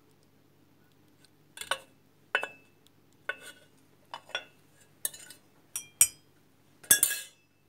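Kitchenware clinking: metal utensils and crockery knocking together in a string of separate sharp clinks, about eight, starting about a second and a half in, the loudest near the end.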